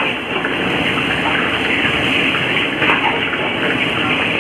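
Steady rushing hiss of a street-stall wok station: oil heating in a large steel wok over a gas burner while a long ladle swirls it, with a few faint ladle scrapes.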